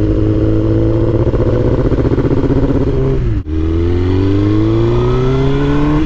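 Suzuki GSX-R1000 inline-four engine pulling on the road under acceleration, its pitch rising steadily, first in its misfiring, reluctant-to-rev state. A bit past three seconds in the note dips and cuts off abruptly, and the engine, now repaired, rises steadily in pitch again.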